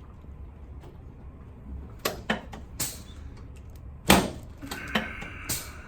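Chiropractic drop table clunking several times as sections drop under the adjuster's thrusts, the loudest clunk about four seconds in, followed by a brief creak.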